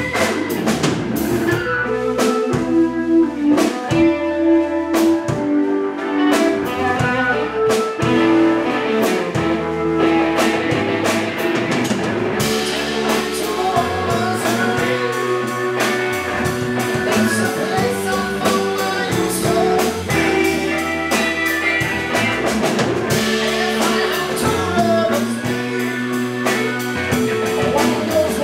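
Live blues band playing: electric guitar, electric bass and drum kit. About twelve seconds in, the drums grow busier and brighter.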